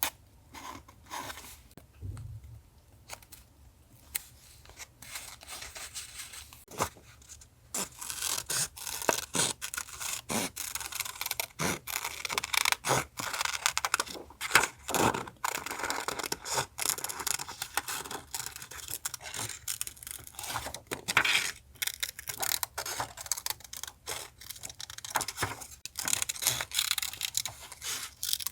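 Paper being handled for a collage journal page: a few light taps and rustles at first, then from about eight seconds in a dense stretch of paper crinkling, scraping and tearing.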